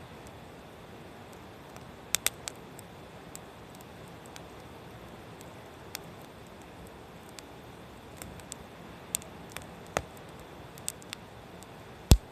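Firewood burning in a mesh fire pit, crackling: scattered sharp pops over a steady soft hiss, the loudest pop near the end.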